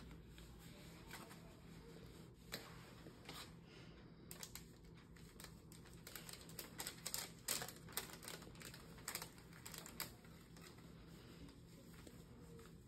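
Faint, irregular crackles and clicks of a paper sterile-glove wrapper and gloves being handled while the gloves are pulled on. The clicks come most often in the middle stretch.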